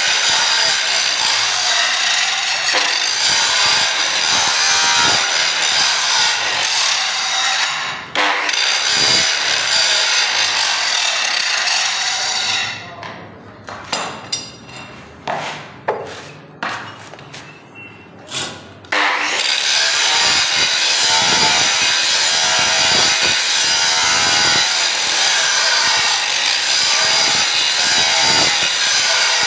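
Angle grinder running, its abrasive disc grinding scale off the surface of a steel bar to clean it for forge welding. About twelve seconds in the grinding stops for several seconds, with a few sharp knocks and clicks as the bar in the tongs is turned. The grinding resumes about nineteen seconds in.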